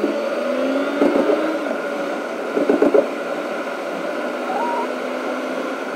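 Tata Punch on the move, heard from inside the cabin: a steady hum of engine and road noise, with a few short knocks about a second in and near three seconds.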